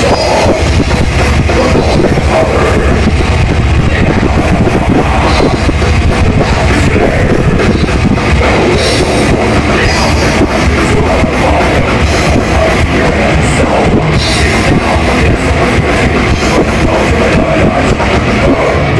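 Death metal band playing live: heavily distorted electric guitars over a drum kit, loud and dense.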